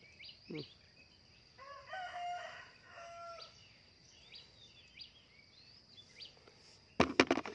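A rooster crows once about two seconds in, among small birds chirping and a steady high insect whine. Near the end comes a short, loud clatter of sharp knocks.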